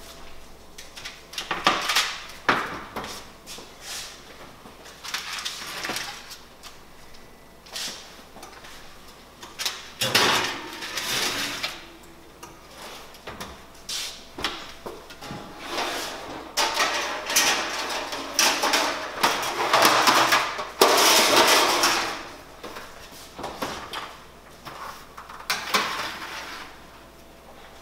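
Oven door opening and closing, metal oven racks sliding, and baking pans clattering as a foil-covered dish and a second pan go into the oven: a string of knocks, clanks and scraping rustles.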